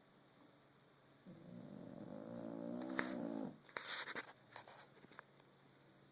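A sleeping French bulldog snoring: one long pitched snore lasting about two seconds that grows steadily louder, then a few short noisy snuffling breaths with small clicks.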